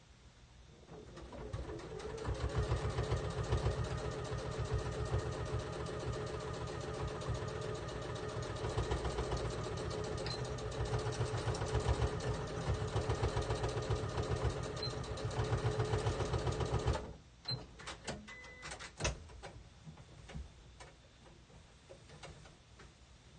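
Domestic sewing machine stitching through a terry-cloth towel in a rapid, even rhythm, speeding up over the first couple of seconds and stopping abruptly about 17 seconds in. A few light clicks and knocks follow as the work is handled.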